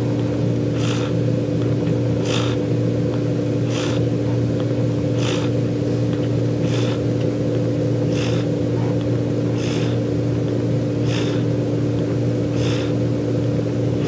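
A dying cat's purring and laboured breathing, heard as a soft hiss about every one and a half seconds, under the loud, steady hum of a room heater's fan. The cat can hardly breathe.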